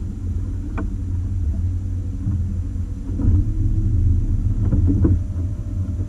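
Outboard motor running in gear as the boat is manoeuvred into its slip, a steady low rumble that swells for a couple of seconds midway.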